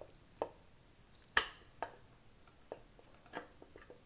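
A thin flat-blade screwdriver clicking and tapping against the slotted stock bolt of a shotgun deep inside its wooden stock, as the tip is felt into the slot: about half a dozen irregular clicks, the loudest about a second and a half in.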